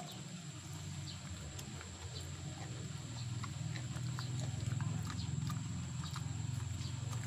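A dog chewing and licking: small irregular wet clicks and smacks, over a low steady hum that grows louder midway.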